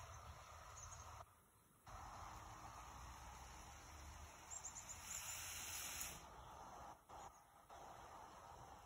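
Faint outdoor garden ambience with a low rumble, and a quick run of small, high bird chirps about halfway through.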